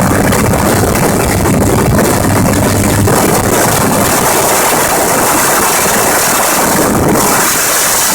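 Gyrocopter engine running steadily in flight, with heavy wind rushing over the microphone.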